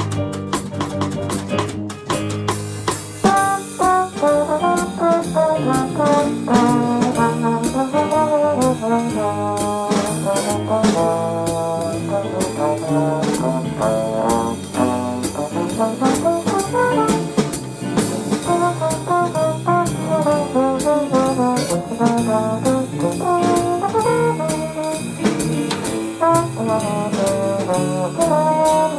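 Small jazz combo: trombone playing the melody over piano, upright bass and drums. The first few seconds hold only bass, piano and drum taps; the trombone comes in about three seconds in.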